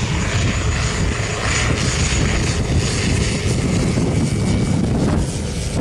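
Single-engine propeller jump plane flying low past, its engine running steadily as it comes in to land.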